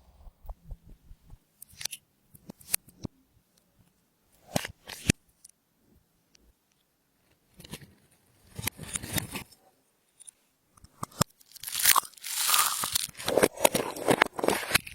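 Hands kneading and pressing clear slime, giving irregular sticky clicks and crackles. Longer crackling squelches come about halfway through, and the loudest, densest stretch comes near the end.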